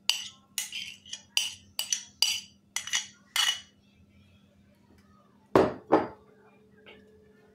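A metal spoon scraping and clinking against a ceramic plate in a quick run of short clicks as chopped onion is pushed off it into a glass bowl, then two louder spoon knocks about five and a half seconds in.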